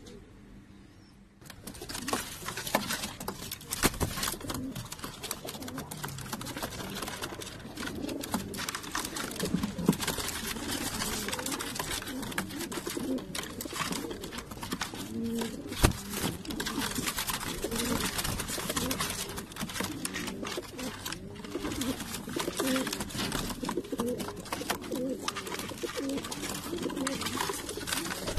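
A flock of fancy pigeons cooing together, many overlapping low, rolling coos starting about a second and a half in and carrying on steadily. Scattered sharp clicks and knocks come through among the coos.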